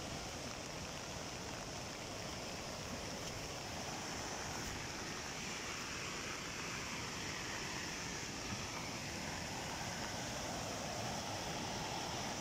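Mountain stream in flood after heavy rainfall, its swollen muddy torrent rushing over rocks in a steady, unbroken rush of water.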